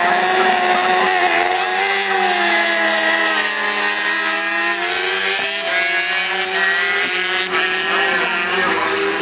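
Grand Prix racing motorcycle engines running hard on the circuit, a loud, high engine note that sinks and then climbs again as the bikes go through their gears.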